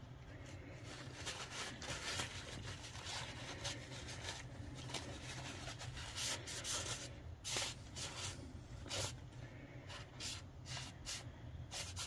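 Faint handling sounds while applying WD-40 to a door hinge: scattered short hisses and rustles, more frequent in the second half, over a low steady hum.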